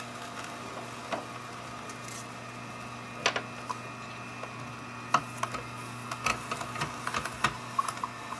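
Omega 8004 masticating juicer running with a steady low motor hum while its auger crushes kale pushed down the feed chute, giving irregular sharp cracks and snaps that bunch together near the end.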